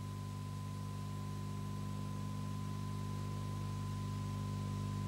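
A steady hum of several held low tones with a thin higher tone above them, slowly getting a little louder.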